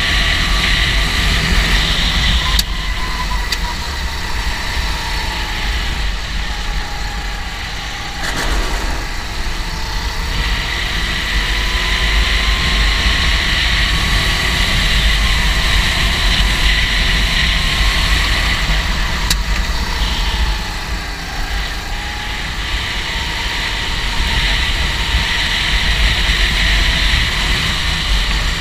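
Go-kart engine running at race speed, its pitch rising and falling slowly, with brief drops in level a few times, as when easing off for corners.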